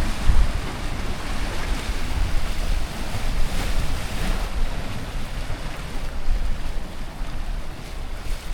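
Mediterranean sea waves washing against the shore under a steady breeze, with wind rumbling on the microphone; one wave swells louder about four seconds in.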